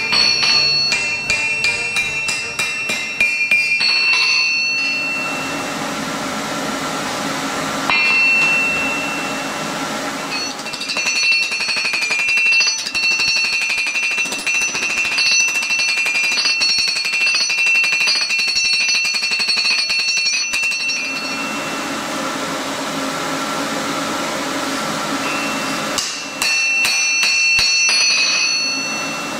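Blacksmith's hand hammer striking a red-hot steel axe head on an anvil in runs of blows, the anvil ringing with each strike, as the axe blade is drawn out thin. Background music plays under it and fills two pauses in the hammering, about five and twenty-one seconds in.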